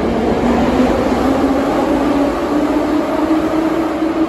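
Metro train moving along the platform, with steady running rumble and a motor whine that rises slowly in pitch as the train gathers speed.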